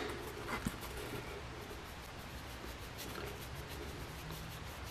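Faint scrubbing of a paintbrush working brown acrylic wash into the grooves of an armor chest plate, with a few light ticks.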